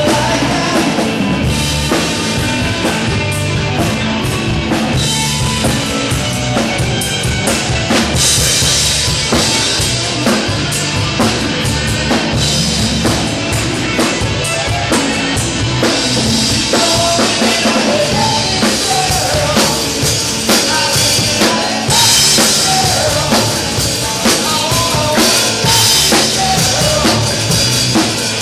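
Live rock band playing loud, with a drum kit's bass drum, snare and cymbals driving the beat under electric guitar.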